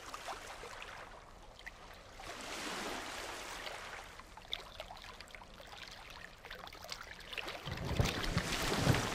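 Ocean surf washing onto a beach in repeated swelling surges, with a louder, deeper rumble near the end.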